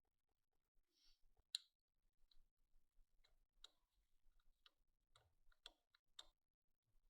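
Faint, irregular light clicks and taps, one or two a second, over near silence.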